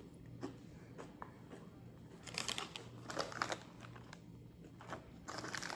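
Close-up eating sounds: scattered light clicks and two spells of crinkly crackling, one about two seconds in and one near the end.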